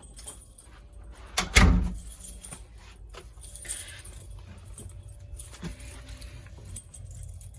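Keys jangling and a fire alarm pull station's handle being pulled, with scattered clicks and rattles and one heavy clunk about a second and a half in.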